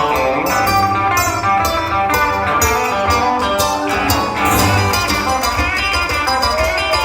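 Band music with guitar and a steady beat of drum and cymbal hits.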